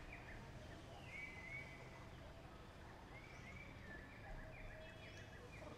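Faint high-pitched animal calls: several thin, wavering squeaks and whistles, some sliding in pitch, over a low outdoor background hum.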